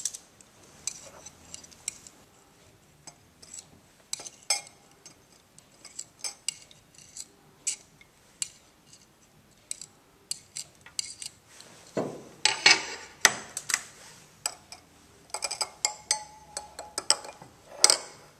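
A metal scalpel blade tapping and scraping on a white tile as potato discs are pushed off it and dropped into a glass boiling tube: a scattered series of short, sharp clicks and clinks, with louder clusters about twelve seconds in and again near the end, when the rubber bung is pressed into the tube.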